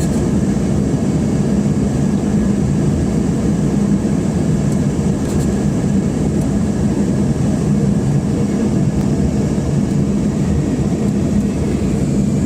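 Steady engine and airflow noise inside a passenger airliner's cabin during its descent, an even loud rumble with a low hum.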